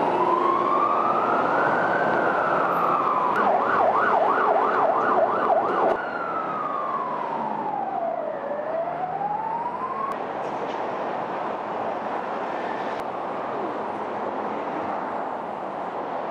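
Ambulance siren wailing up slowly, then switching to a fast yelp for about two and a half seconds before cutting off suddenly. A fainter siren then makes one slow fall and rise, leaving a steady rush of motorway traffic.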